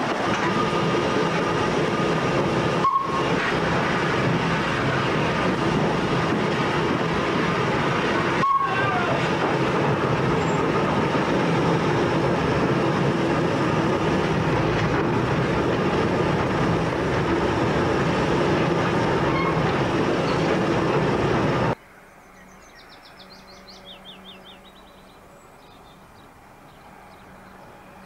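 Steam locomotive Flying Scotsman, an LNER A3 Pacific, heard on board while running: a loud, steady rumble and rattle of wheels, rails and locomotive, with two brief clicks. About 22 seconds in it cuts off abruptly to a much quieter faint hiss.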